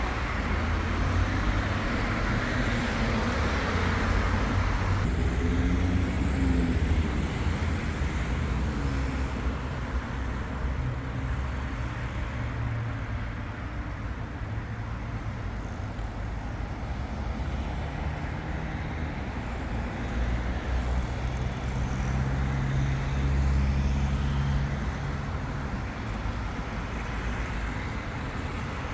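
City road traffic: motor vehicles passing on a busy street, a steady low engine rumble mixed with tyre noise.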